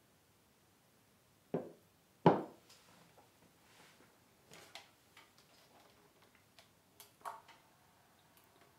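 A drinking glass set down on a wooden table with two knocks, the second the louder, followed by soft clicks and rustling as a plastic handheld megaphone is picked up and handled, with a few sharper clicks about seven seconds in.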